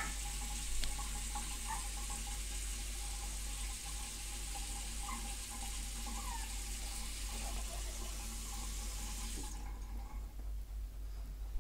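A steady high hiss, like water running from a tap, that stops suddenly about nine and a half seconds in, with a few faint short high sounds over it.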